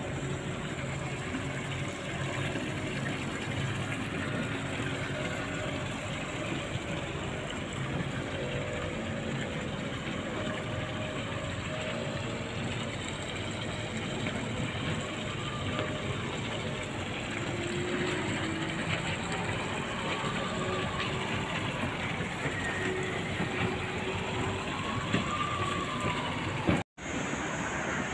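Steady outdoor city ambience: a continuous rush of noise with distant traffic, cutting out for an instant near the end.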